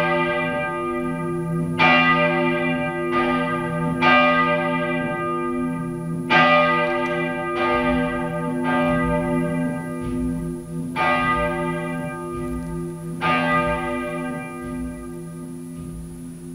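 Church bell tolling for a parishioner whose death has just been announced: about nine unevenly spaced strikes every one to two seconds, each ringing on over a steady low hum, the strikes stopping at about thirteen seconds as the hum fades.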